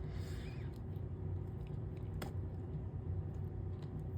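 Steady low background hum with a few light clicks and a brief soft rustle of small glass pieces being handled and pressed into place on the work surface.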